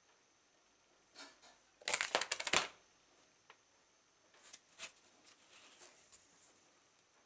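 A cardboard coin surprise box springing open, its rubber-band-linked cardboard panels clattering down onto the table in a rapid burst about two seconds in. This is followed by a few light taps of cardboard as hands gather the panels.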